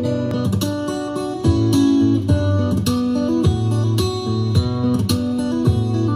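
Guitar-led music, plucked and strummed over a strong bass line, played back through a Bluetooth speaker in a sound test.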